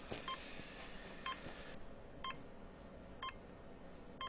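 Electronic beeps from a hospital bedside monitor, five short, evenly spaced pips about once a second, like a patient's heartbeat being tracked.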